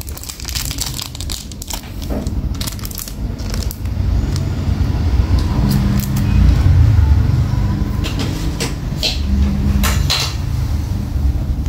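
Vintage 1995 silver-plated Zippo lighter's lid and cam clicking open and snapping shut again and again, sharp metallic clicks at uneven intervals. Traffic rumble runs underneath.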